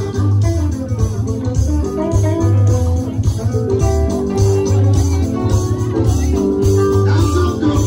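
Music with plucked guitar lines over a steady, pulsing bass beat.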